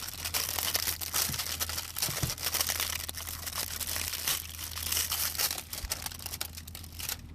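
Paper packaging being crumpled and torn by hand while a slime container is unwrapped: a dense, continuous crackling that stops just before the end.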